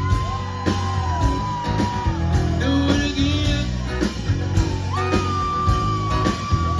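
Live country-rock band playing, with acoustic guitars, bass and drums, and long held sung notes over the band.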